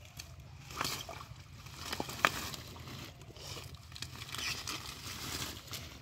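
Hands sloshing and squelching in shallow muddy water while pulling at water hyacinth, with a few sharp clicks, the loudest a little over two seconds in.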